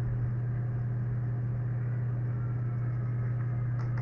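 Steady low electrical hum on the lecture recording, with no voice over it. It is the humming that the microphone setup is picking up, a fault in the mic chain. There is a faint click near the end.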